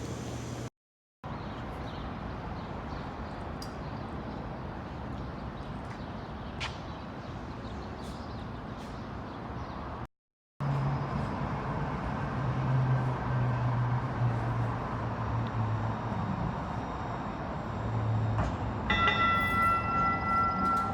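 Train running with a steady rumble and rattle. A low hum sets in about halfway through, and a set of steady high tones like a horn or signal sounds near the end.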